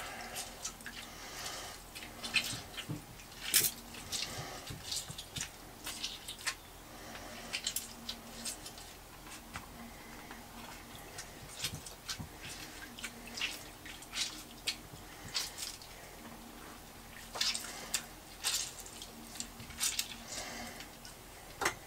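Lemon being squeezed by hand over a sieve into a bowl: faint squelching and juice dripping and splashing into the liquid, in scattered short ticks.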